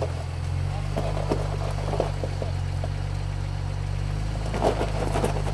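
Jeep's engine running low and steady while it rock-crawls, with a few short knocks and crunches of tyres and chassis on rock, the loudest near the end.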